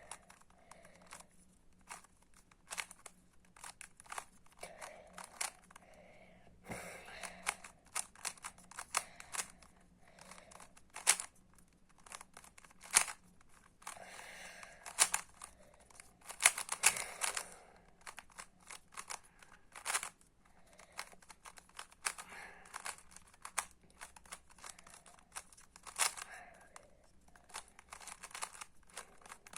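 A magnetic speed cube being turned quickly in the hands during a solve: irregular runs of plastic clicks and clacks as the layers snap round, with short pauses between bursts. The cube is unlubricated and a bit stiff.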